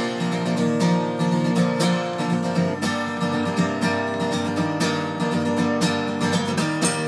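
Background music: an acoustic guitar strumming at an even pace, with no singing.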